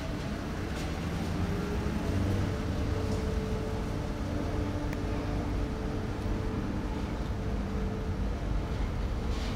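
Locomotive turntable rotating with a steam locomotive on it: a steady low mechanical rumble with a constant hum over it.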